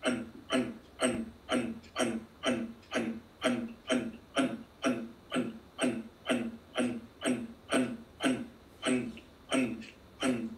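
Kapalabhati breathing: a woman's forceful, rhythmic exhalations, about two a second in a steady train, each a short puff of breath with a slight falling tone.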